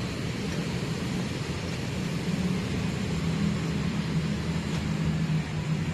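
Steady road traffic noise with a low engine hum that grows louder about two seconds in and eases near the end.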